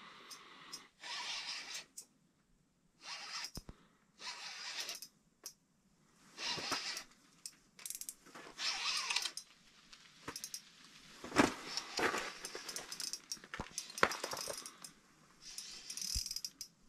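Ice-fishing reel being cranked in several short bursts, its gears whirring with a ratcheting sound, with a few sharp clicks in the second half.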